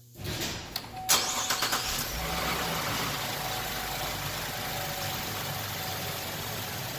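GMC Acadia's 3.6-litre V6 cranked by the starter and catching about a second in, then settling into a steady idle.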